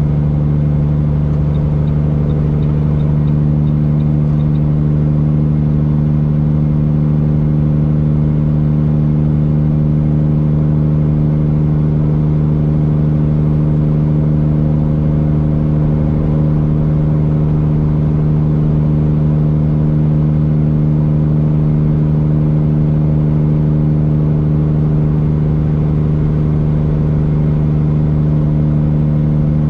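Straight-piped Cummins diesel of a Peterbilt 379 semi truck cruising at steady highway speed, heard from the cab: a deep, even exhaust drone holding one pitch.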